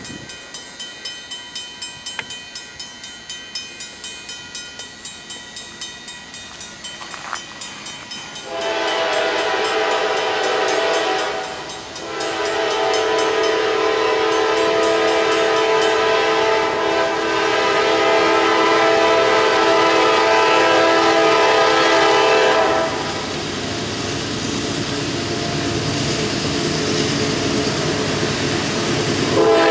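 Grade-crossing warning bell ringing at about two to three strokes a second as a Norfolk Southern diesel freight approaches. Its locomotive horn then sounds a multi-note chord: a blast about eight seconds in, a short break, then one long blast held for about ten seconds, and another blast starting just before the end.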